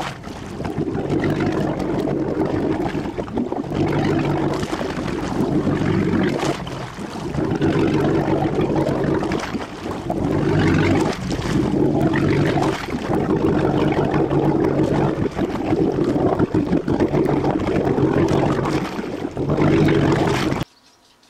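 Boat engine running, a steady low drone that dips briefly now and then, with a rushing noise over it. It cuts off suddenly near the end.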